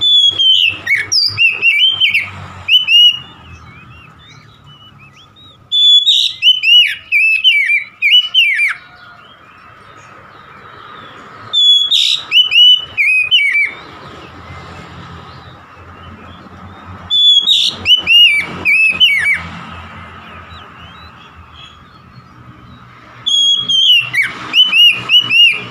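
Oriental magpie-robin singing in five bursts about every six seconds, each a quick run of loud whistled notes that slide down in pitch.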